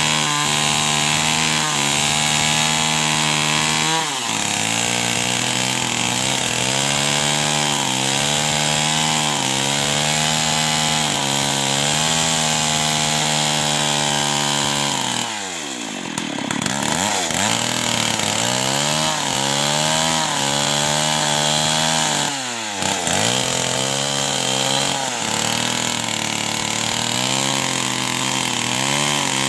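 Two-stroke chainsaw cutting through wood under load, its engine pitch sagging and recovering every second or so as the chain bites. About halfway through the revs drop sharply and climb back, and they dip briefly again a few seconds later.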